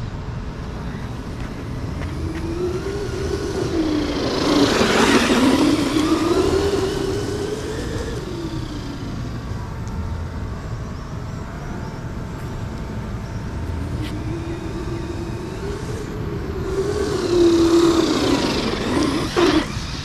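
Arrma Granite 3S RC truck's electric motor whining, its pitch rising and falling with the throttle as it runs on hard sand. Two bursts of speed, about four seconds in and again near the end, bring the loudest stretches, with a rush of tyre and sand noise over the whine.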